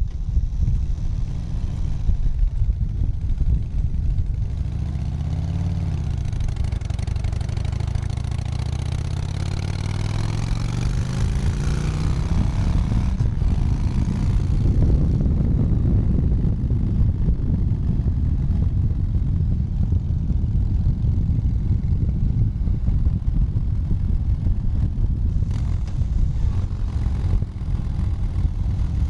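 Motorcycle engine heard from the saddle while riding: it speeds up with a rising engine note for several seconds about a third of the way in, then runs on at a steadier pitch with road and wind noise.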